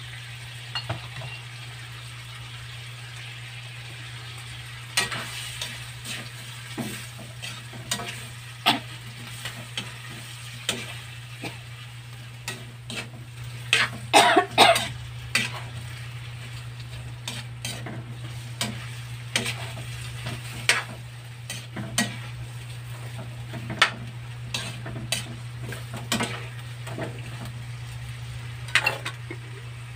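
A metal spatula scraping and clanking against a steel wok while stirring chicken livers, gizzards and potatoes in sizzling adobo sauce, in irregular strokes with a quick run of louder clanks about fourteen seconds in. A steady low hum runs underneath.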